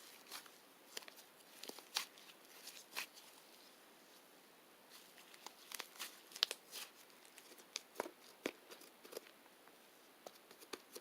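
Scattered small, sharp clicks and crinkles at an irregular pace, like something light being handled or crumpled, with a quieter pause near the middle.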